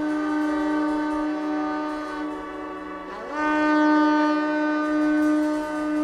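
Shofar blown in a long held note; about three seconds in the note breaks, slides upward and settles into a louder steady blast.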